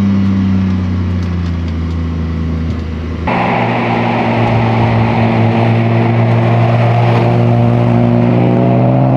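BMW E30's swapped-in M52B28 2.8-litre straight-six with a custom exhaust, running at a steady pitch that sags slightly, then about three seconds in turning suddenly louder, its pitch climbing steadily as the car accelerates.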